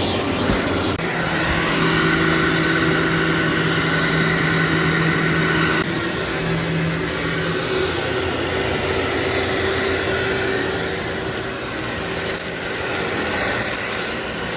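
Vacuum cleaner running steadily over a heavily soiled carpet, its motor whine shifting in pitch about a second in and again around six seconds in.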